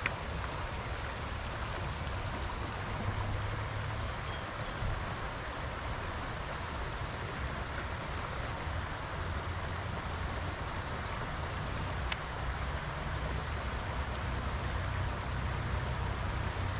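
Shallow creek water flowing over stones, a steady rush.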